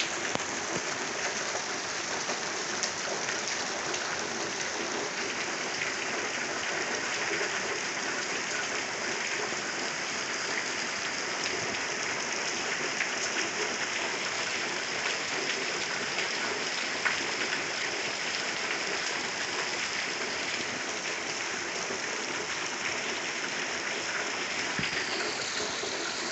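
Heavy rain pouring steadily onto roofs, trees and paving, a dense even hiss with scattered louder drop hits.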